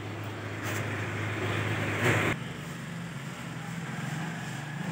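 A steady low motor hum that steps up slightly in pitch a little past two seconds in, with a brief louder scrape or rustle just before the change.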